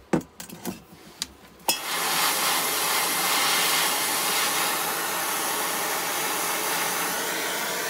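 Handheld gas torch lighting with a sharp click about two seconds in, then burning with a steady hiss as its flame heats a hardened steel blade to temper it.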